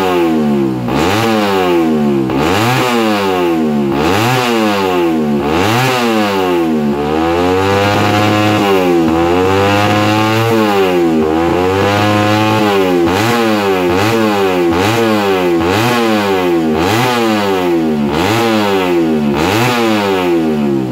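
Underbone race motorcycle engine revved on its paddock stand: the throttle is blipped about once a second, the pitch rising sharply and dropping back each time, with two slower, longer sweeps up and down in the middle. These are warm-up revs before the race.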